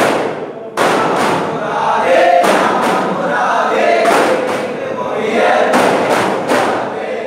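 Daff muttu: a troupe striking daf frame drums together in clusters of sharp beats, over group chanting of a ratib.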